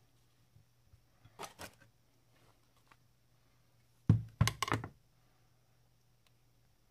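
Two short scrapes, then a quick clatter of several knocks about four seconds in as a steel Böker Outdoor Cuisine III santoku-style knife is laid down on an end-grain wooden cutting board.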